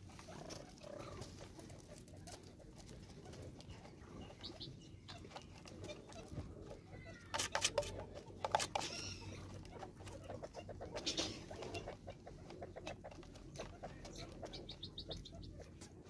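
Helmeted guineafowl pecking seed from a plastic feeder, giving irregular taps and clicks. The taps are loudest in a cluster about halfway through, and faint bird calls come in between.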